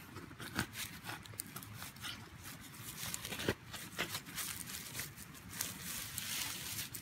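Digging into a marked metal detector target with a hand digger: repeated scrapes and clicks as the blade works through stony soil, and loose dirt crumbling.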